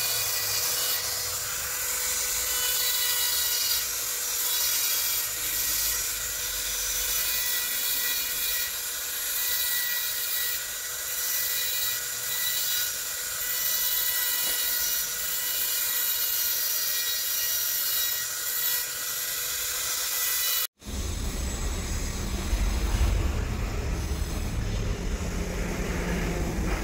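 High-speed handheld rotary engraving tool with a pointed bit grinding fine lines into black stone: a steady high whine with a gritty hiss. About 21 s in it cuts off abruptly and gives way to a low, rumbling noise.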